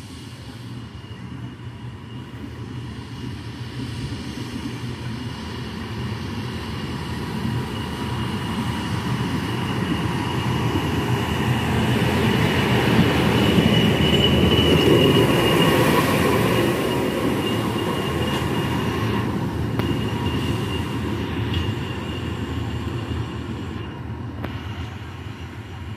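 Railway track maintenance machines, a multiple tie tamper and a ballast regulator, running along the line: engines running and wheels rumbling on the rails, growing louder to a peak about halfway through as they pass close, then fading. A steady high whine rides over the rumble.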